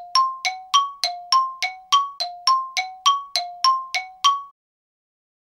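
Bell-like chime, about sixteen rapid strikes alternating between a lower and a higher note, roughly three a second. Each strike rings briefly and fades, and the run stops about four and a half seconds in.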